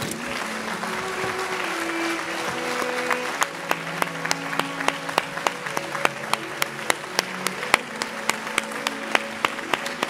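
Audience applause with music playing over it. From about three seconds in, sharp single claps stand out at a quick, even pace.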